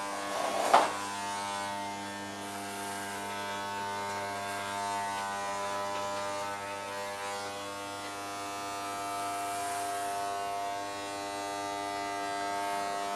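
Corded electric hair clippers running with a steady buzz while shaving a head, with one sharp knock about a second in.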